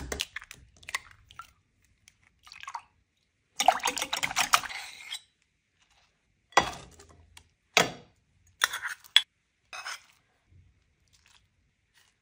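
Food being prepared in a ceramic mixing bowl in short separate bursts: eggs cracked open against the bowl, and a utensil clattering and stirring inside it, with a longer run of quick strokes near the middle.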